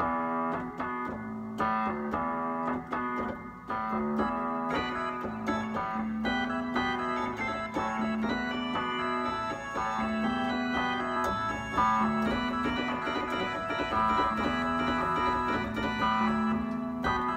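Nord Electro 5D playing a Vox organ sound on the upper keys and a Rhodes Mark I electric piano on the lower two octaves as a bass, with vibe and reverb on the organ. Organ chords ring over a low note repeated again and again, and the Rhodes has a slight growl.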